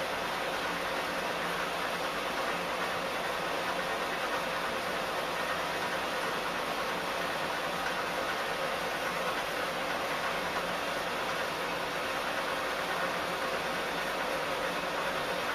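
Steady rushing hiss, even and unchanging, with no voices or music.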